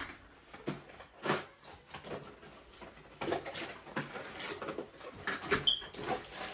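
Irregular light knocks, taps and rustles of hands working at a wall while an LED light strip is being mounted, with a brief high squeak a little over five seconds in.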